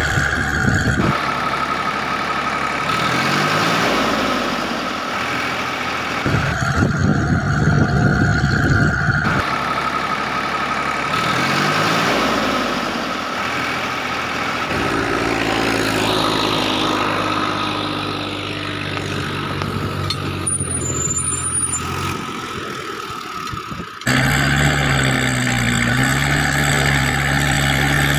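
Heavy vehicle engine sounds laid over the picture: engines revving up in pitch and idling steadily, in pieces that switch abruptly several times.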